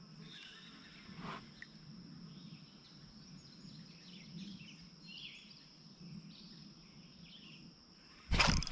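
Creekside ambience: a steady high-pitched insect drone with faint bird chirps over it. A brief loud noise breaks in near the end.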